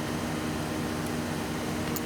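Steady engine hum under an even wash of traffic noise.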